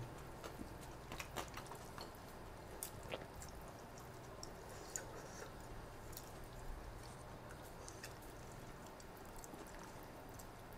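Faint, close-up chewing of a mouthful of khanom jeen rice noodles in coconut-curry sauce: scattered small wet mouth clicks, thinning out after about three seconds.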